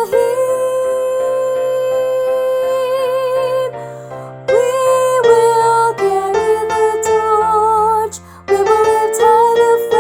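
A woman's mezzo-soprano voice singing a choral part over piano accompaniment, holding notes with vibrato. The first note is held for about four seconds, and there are short breaks about four and eight seconds in.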